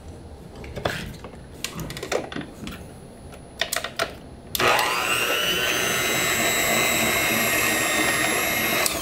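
A few scattered clicks and knocks of handling, then about halfway through a high-speed electric food-processing machine's motor spins up and runs steadily at a high whine, stopping abruptly at the end.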